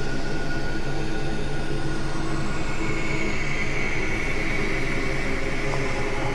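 Dark ambient drone soundscape: a steady low rumble under layered sustained tones, with a high tone slowly falling and a brighter tone coming in about three seconds in.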